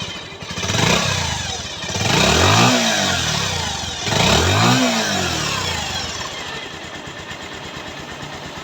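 Bajaj Pulsar UG5 single-cylinder engine, just rebuilt with its tappet clearance freshly adjusted, revved up and back down three times, then settling to a steady idle.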